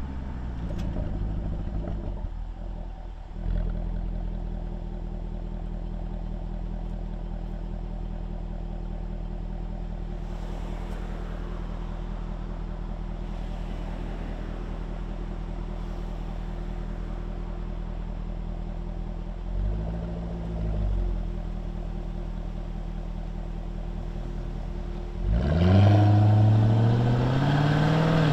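Jaguar F-Type R's supercharged V8 heard from the open cockpit, settling to a steady idle with the car at a standstill after the first few seconds. About twenty seconds in the revs rise briefly and fall back. Near the end the car pulls away and the engine note rises with the revs, louder than anything before.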